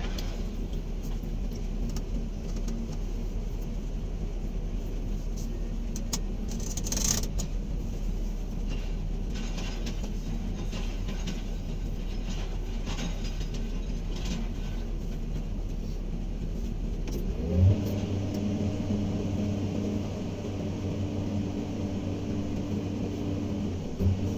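Komatsu PC200 excavator's diesel engine running with light rattles. About two-thirds of the way in, its note steps up to a stronger, steady drone, with a knock as it changes and another knock near the end.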